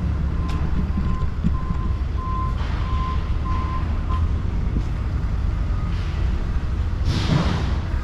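Vehicle reversing alarm beeping at about two beeps a second over a steady engine rumble, stopping about four seconds in. A short hiss follows about seven seconds in.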